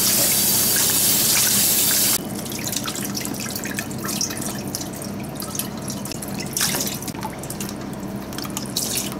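Tap water from a pull-out sink hose running into a pot of water while hands scrub and splash a sturgeon head under the stream. The steady hiss of the stream drops suddenly about two seconds in, leaving quieter splashing and dripping.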